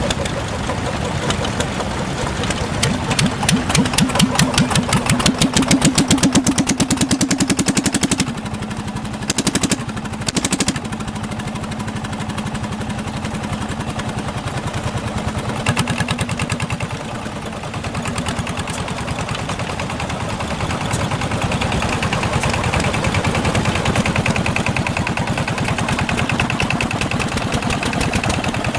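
Yanmar SK single-cylinder marine diesel engine running with fast, even firing beats. Its speed climbs for the first eight seconds or so, then drops suddenly to a steady lower speed. Two short blips follow, and it settles into a steady run.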